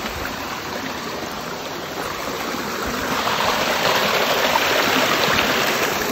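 Small mountain creek spilling over rocks in a little cascade, a steady rushing of water that grows louder about halfway through.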